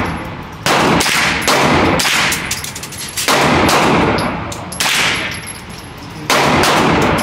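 Gunfire at a shooting range: about five loud shots at uneven gaps of one to two seconds, each followed by a long echoing tail, with fainter, quicker cracks in between.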